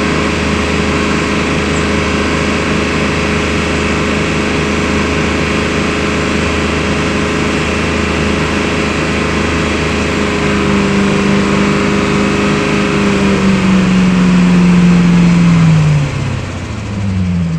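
BMW car engine running with a steady note that grows louder about two-thirds of the way through, then falls in pitch twice near the end as the engine slows.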